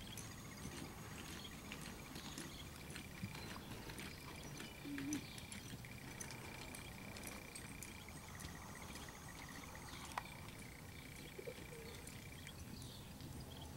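Faint, muffled hoofbeats of a ridden horse moving on soft arena dirt, over a steady outdoor background hiss with a faint high steady tone.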